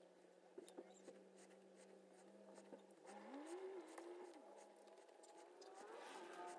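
Near silence: faint clicks and light scraping of small RC truck parts being handled, over a faint steady hum, with a brief faint wavering tone a few seconds in.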